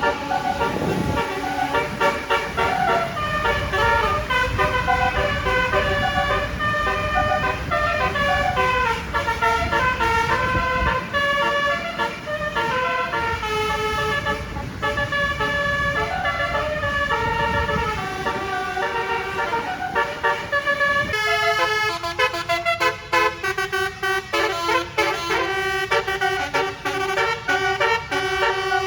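A bus's telolet basuri horn, a set of musical air horns, playing a fast melody in short stepped notes. A low rumble runs underneath until about two-thirds of the way through, where it drops away and the horn tune carries on.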